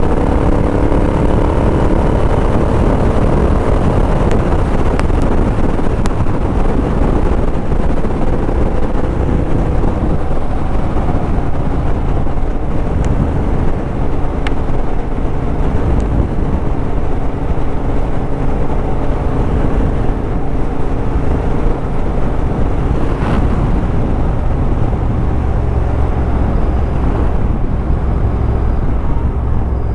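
Royal Enfield Interceptor with an 865cc big-bore parallel-twin engine, high-flow headers and mufflers, running at road speed, its engine drone mixed with wind rush on the helmet microphone. The engine note turns deeper and heavier in the last few seconds as the bike slows and downshifts.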